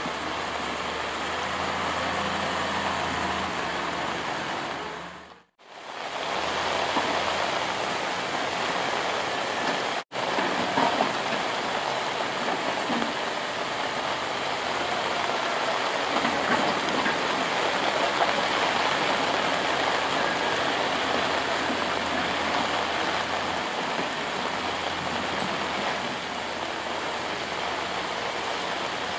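Heavy rain and strong wind, a dense steady hiss, with a low engine hum underneath. The sound cuts out briefly twice, about five and ten seconds in.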